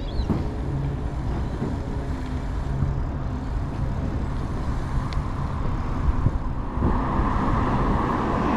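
Wind rumble on the microphone of a camera riding along on a bicycle, mixed with road and traffic noise; a rushing sound swells louder near the end.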